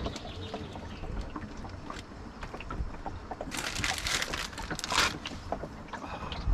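Wind buffeting the microphone and water moving around a small boat, with scattered small knocks and a louder hissing rush for about a second and a half near the middle.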